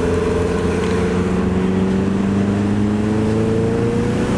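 Turbocharged Subaru GC8 WRX/STI's flat-four engine pulling under gentle acceleration, heard from inside the cabin, its pitch rising slowly and steadily.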